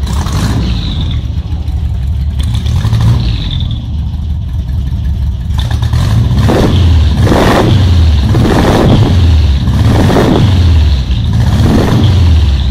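Motorcycle's car-derived engine idling, then from about six seconds in blipped on the throttle about five times in a row, each rev rising and dropping back to idle.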